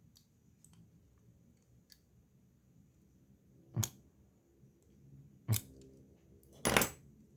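Leatherman Wingman multitool being worked open by hand: a few faint metal clicks, then three sharp clicks or knocks, at about four seconds, five and a half seconds and near the end, the last one the loudest and longest. The tool being pried out is stiff.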